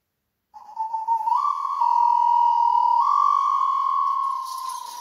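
Recorded music played back over Canton hi-fi loudspeakers driven by Cary Audio tube amplifiers. A pure, whistle-like melody is held in long notes, stepping up and down in pitch a few times. It fades near the end as light shaker-like percussion comes in.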